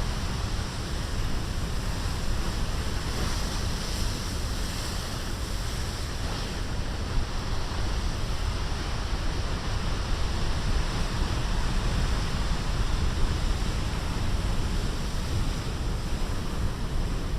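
Heavy storm surf breaking and washing in a steady roar, with wind buffeting the microphone.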